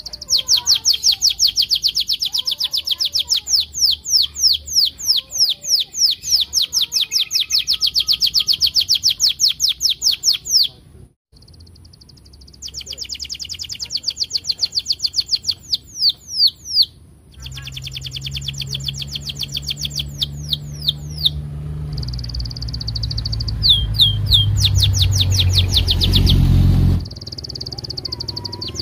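Domestic canary in full song, rattling off long rolling trills of rapid, repeated down-slurred chirps, in several bouts broken by short pauses. A low hum runs underneath in the second half.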